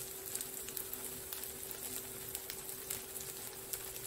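Zucchini and carrot fritters frying in hot oil in a frying pan: a steady soft sizzle dotted with small crackles and pops. A faint steady hum runs underneath.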